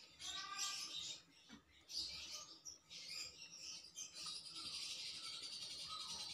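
Birds chirping and twittering outdoors, faint and repeated, with a thin high trill running through the second half.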